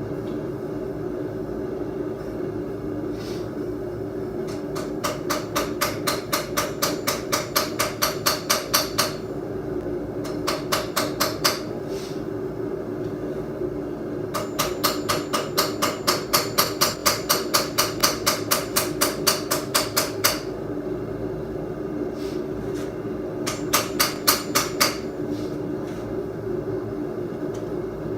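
Hammer ringing on the steel of a Viking seax blade, forged from an old Nicholson file, as its warp is hammered straight. The blows come in quick runs of about four a second, with pauses between the runs. A steady low rumble runs underneath.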